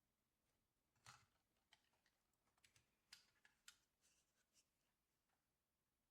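Near silence with about a dozen faint, irregular clicks, like small plastic buttons or a switch being pressed.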